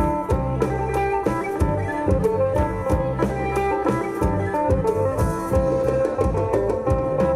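An Isan pong lang folk band playing live: plucked string melody over a drum kit keeping a regular beat, with sustained notes held underneath.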